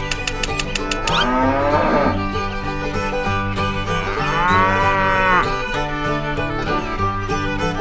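Cow mooing twice, two drawn-out calls that rise and fall in pitch, over background music.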